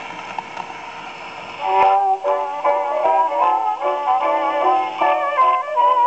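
A Victor VV-50 wind-up acoustic Victrola playing a 1928 Velvet Tone 78 rpm record: the needle is set down with a small click, surface hiss runs for about a second and a half, then the record's instrumental introduction begins.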